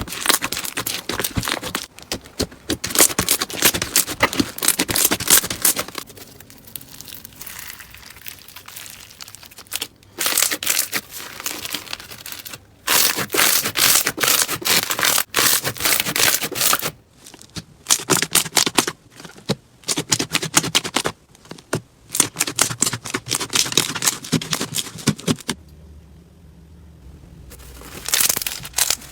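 Slime being squeezed and pressed by hand, giving dense crackling and popping in bursts a few seconds long, with short pauses between them.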